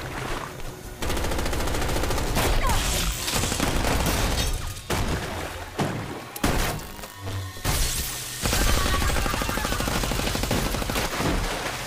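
Film-soundtrack gunfire: rapid volleys of shots in quick succession, broken by a few short lulls.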